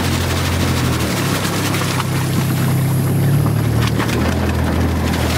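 Engine of an amphibious Sherp all-terrain vehicle running steadily while afloat during a water crossing, with water and wind noise. The engine note shifts about a second in and again past the middle.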